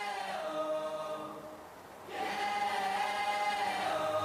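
Quiet song intro of long, held choir-like chords in two phrases. The first fades out and the second swells in about two seconds in.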